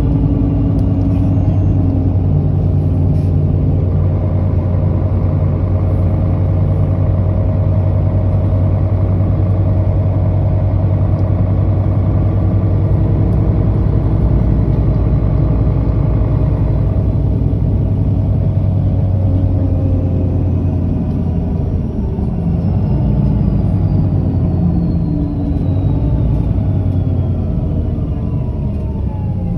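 Mercedes-Benz O530G articulated bus running under way with a steady low engine note. From about two-thirds of the way through, a whine falls steadily in pitch as the bus slows.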